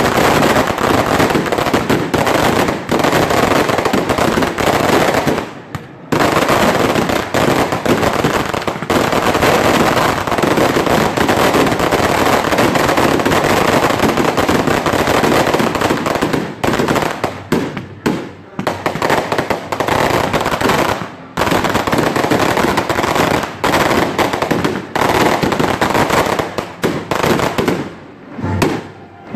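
A fireworks barrage: a dense, nearly unbroken stream of sharp bangs and crackling reports in rapid succession. There are brief lulls about six seconds in and again about twenty-one seconds in, and it thins out near the end.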